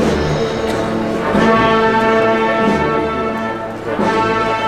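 Brass band playing a slow processional march, with sustained brass chords over low drum beats.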